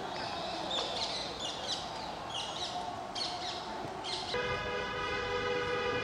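Birds calling in the trees, a short harsh call repeated about once a second, over a steady hum of distant city traffic. About four seconds in, a steady horn-like tone starts up and holds.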